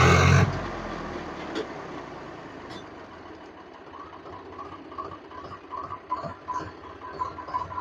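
Swaraj 735 FE tractor's three-cylinder diesel engine, loud for the first half second, then after a sudden drop idling more quietly with an even ticking beat.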